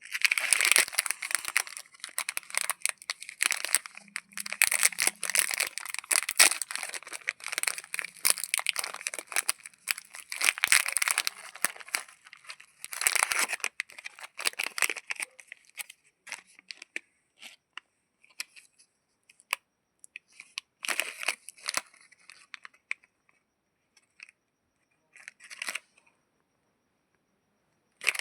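Chocolate bar wrapper being torn open and crinkled: dense crackling for about the first fourteen seconds, then sparser crinkles that die away a couple of seconds before the end.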